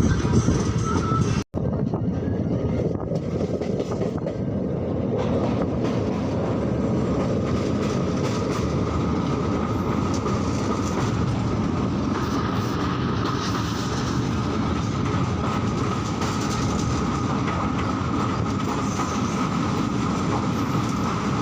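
Moving train's steady running noise: a continuous rumble with a thin steady whine over it, starting after a sudden brief dropout about one and a half seconds in.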